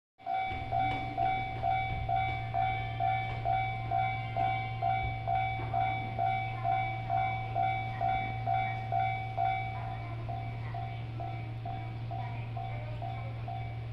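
Japanese railway level-crossing warning bell ringing, an even repeated clang at about two strikes a second, over a steady low hum. A little under ten seconds in the bell drops to a softer level and keeps ringing.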